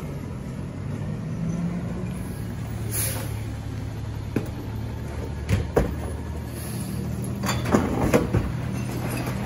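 Autocar ACX rear-loader garbage truck's diesel engine idling steadily, with sharp knocks and clatters of plastic wheeled trash carts being handled behind the truck, a few single knocks from about four seconds in and a cluster of the loudest clatters near the end.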